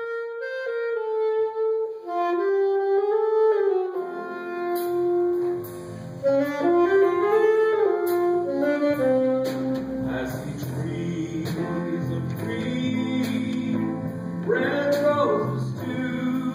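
Live jazz band: a saxophone plays the melody alone, and the rest of the band joins in about four seconds in.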